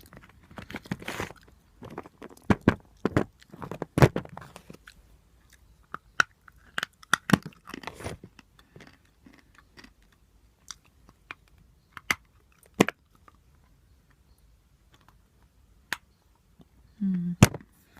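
A person biting and chewing pieces of natural chalk, with crisp dry crunches: dense over the first eight seconds or so, then only occasional single cracks.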